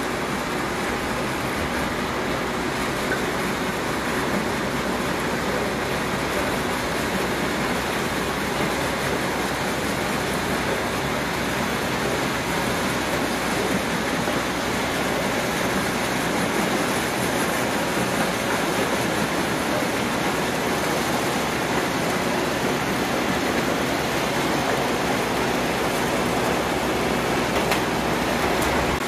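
Yanmar bean combine harvester running steadily while cutting and threshing dry black soybean plants: an even, dense machine noise with a low engine hum underneath.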